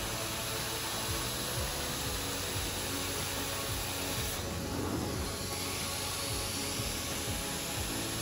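Background music with a steady beat, mixed with the steady hissing suction of a hot-water extraction wand being pulled across carpet.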